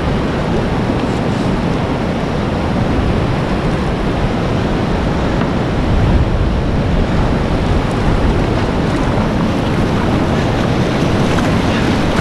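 Class 4 whitewater rapid rushing loudly around a kayak at close range: a steady, deep wash of churning water with no pauses.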